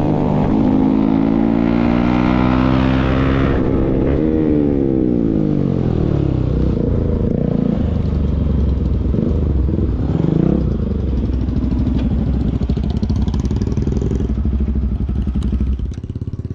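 Motorcycle with an aftermarket Akrapovic full-system exhaust, ridden hard. The engine note holds high for a few seconds, climbs briefly about four seconds in, then drops away to lower, uneven running.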